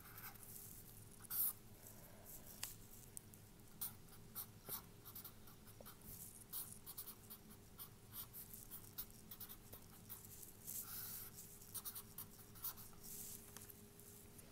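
Marker pen scratching on paper as equations are written, a faint run of short, irregular strokes.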